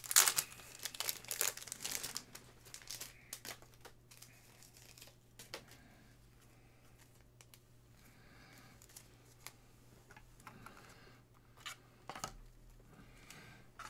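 Plastic sports card packaging being torn open and crinkled, loudest in the first two seconds, then dying down to faint scattered rustles and clicks of handling, with a little more crinkling near the end.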